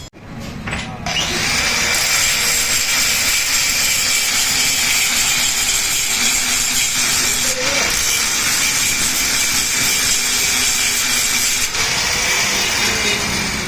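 Angle grinder starting about a second in and grinding steadily on steel, cutting away the weld on a motorcycle gear lever. The grinding dips briefly twice and eases near the end.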